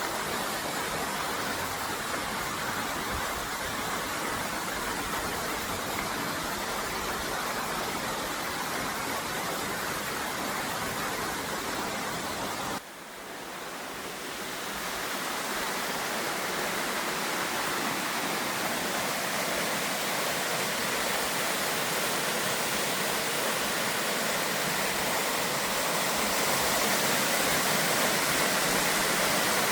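Waterfall rushing, a steady even roar of falling water. The sound drops abruptly about thirteen seconds in, then slowly swells back to full strength.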